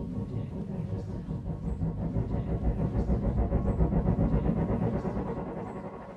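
A low rumbling drone with a fast flutter in it, swelling toward the middle and fading out at the end, with a faint high tick about every two seconds.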